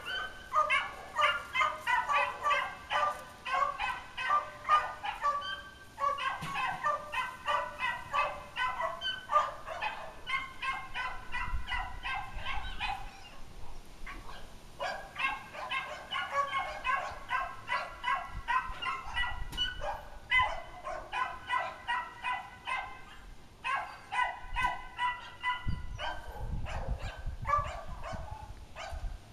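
Many animals calling at once in short, repeated calls, several a second, with brief lulls about six, fourteen and twenty-four seconds in.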